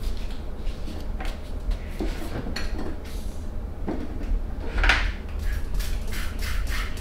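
Scattered light clicks and knocks of objects being handled at irregular intervals, a louder, longer one about five seconds in, over a steady low hum.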